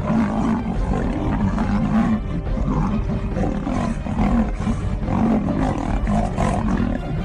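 A tiger and a lion snarling and roaring as they fight, in an unbroken run of rough calls with no pause.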